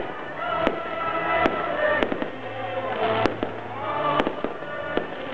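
Aerial fireworks bursting overhead: a string of sharp bangs about every half second to a second, the loudest a little past the middle, with music playing underneath.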